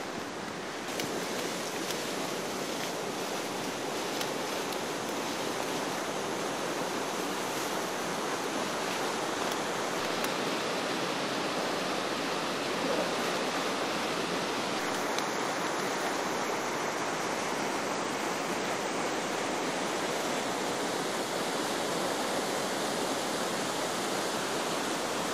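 Steady, even rushing outdoor noise with no speech and no distinct events.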